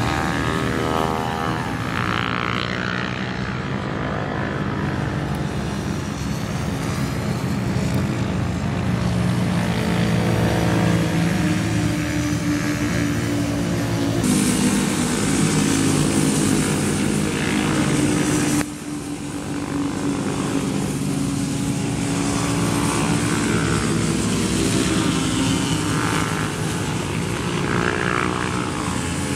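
Racing motorcycle engines revving hard as bikes pass on the circuit, the pitch rising and falling with the throttle and gear changes. The sound cuts off abruptly about two-thirds of the way through and picks up again with bikes revving through a bend.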